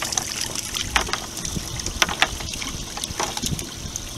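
A wet cast net being handled after a haul: water trickling and dripping off the mesh, with scattered sharp clicks, over a steady hiss and some wind on the microphone.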